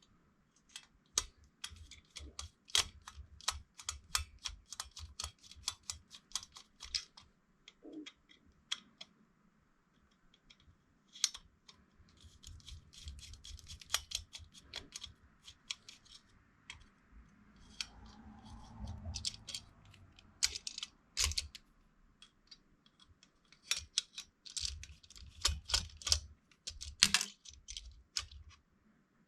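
Light, rapid clicks and taps of a screwdriver and small computer parts being handled while the Phillips screws holding a desktop CPU fan are taken out. There are scattered louder knocks, and a brief rubbing, scraping stretch about two-thirds of the way through.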